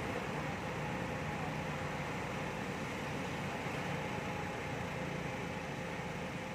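Steady wind and road noise from a bicycle on the move, with a faint steady hum underneath.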